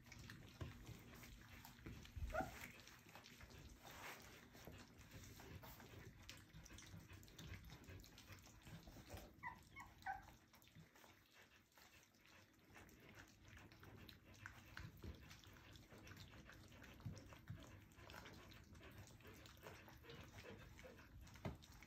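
Almost four-week-old puppies eating from a stainless steel feeding pan: faint lapping and small clicks, with a few short high whimpers, one about two seconds in and a little cluster about nine to ten seconds in.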